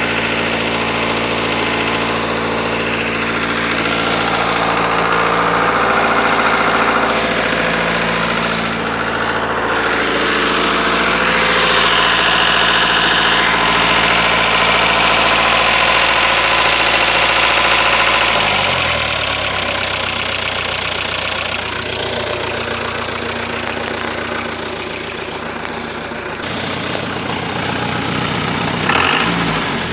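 ARO 244 off-roader's engine idling steadily. Its speed drops to a lower idle about two-thirds of the way through, and it gives a brief rev near the end.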